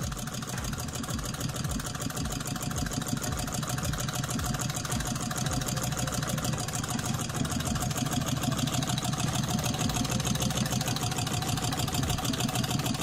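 Homemade Stirling engine with a rubber bellows running steadily, its moving parts making a fast, even mechanical clatter.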